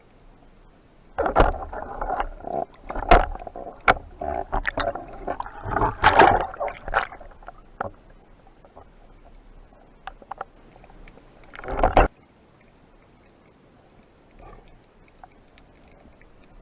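Water splashing and sloshing in irregular bursts, with several sharp knocks among them and one last short burst about twelve seconds in.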